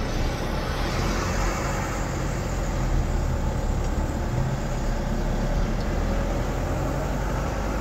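Steady rumble of road vehicles: engine and tyre noise, loud and unchanging, with a deep low hum underneath.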